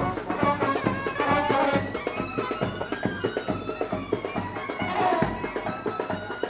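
Traditional Indian wedding music: a wind instrument playing a melody over fast, steady drumming.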